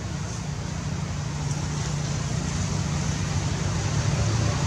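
Steady low rumble of background noise, slowly growing louder, with a faint high hiss above it.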